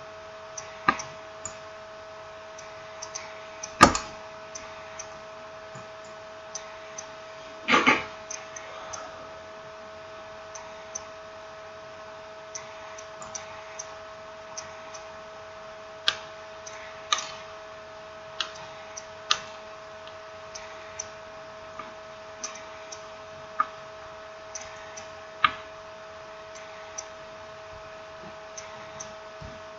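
Irregular small clicks and taps of a smartphone's parts and small tools being handled during reassembly, with louder knocks about four and eight seconds in, over a steady electrical hum.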